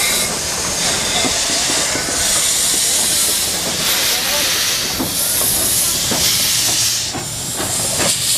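FS 728 steam locomotive moving off slowly, with loud steam hissing from around its cylinders in long blasts broken by short lulls about four and seven seconds in.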